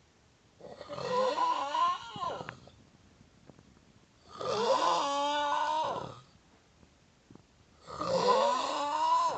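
Snoring: three long snores about three and a half seconds apart, each carrying a drawn-out tone that wavers up and down in pitch. The last is cut off at the end.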